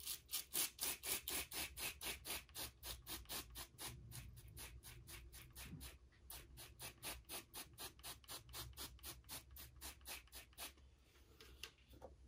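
Hand-held trigger spray bottle misting water into a glass terrarium. The trigger is squeezed in quick, even strokes, about four a second, each a short hiss of spray, and they stop about a second before the end.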